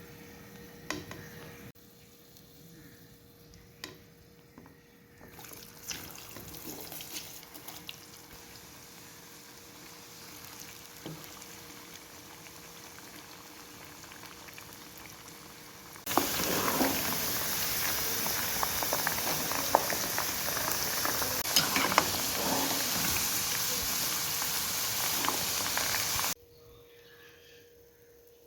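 Food deep-frying in hot oil, sizzling with sharp crackles. A much louder stretch of sizzling starts suddenly about halfway through, lasts about ten seconds and cuts off abruptly.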